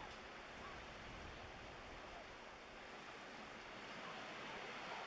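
Faint, steady wash of small waves on the shore.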